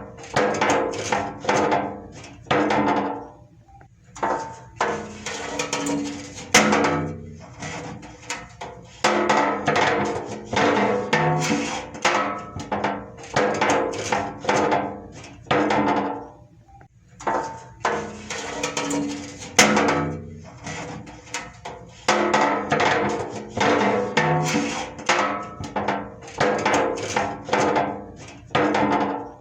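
Metal being struck over and over in quick runs of several strikes a second, each strike ringing on with a metallic tone, broken by short pauses.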